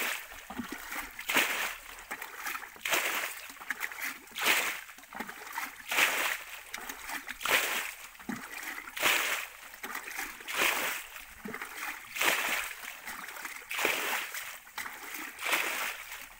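Water splashing in a steady rhythm, one splash about every second and a half, in a shallow muddy pond.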